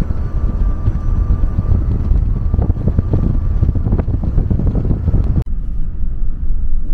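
Vehicle rumble with gusty wind buffeting the microphone. About five and a half seconds in it breaks off abruptly into a steadier, duller rumble.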